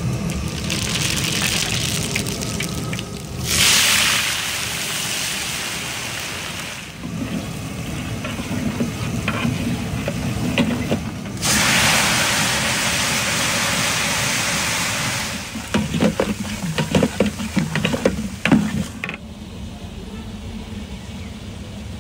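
Spices sizzling in hot oil in a large aluminium pot as they go into the tadka, the hiss swelling in strong surges. For a few seconds near the end a metal spatula scrapes and knocks against the pot, and then the sizzle dies down.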